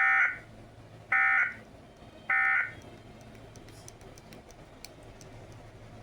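Emergency Alert System end-of-message data bursts from a TV: three short, harsh digital tone bursts about a second apart, marking the end of the alert.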